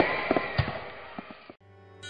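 Fireworks popping and crackling over a steady rushing noise, fading away over about a second and a half. Quiet sustained musical tones begin near the end.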